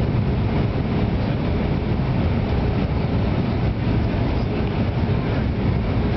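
Airbus A319 cabin noise on descent: the jet engines and the airflow over the fuselage make a steady, even low rumble inside the cabin.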